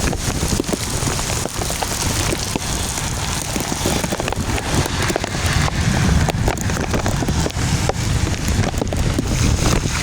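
Heavy rain falling steadily, with many individual drops striking close by as sharp ticks over a dense hiss.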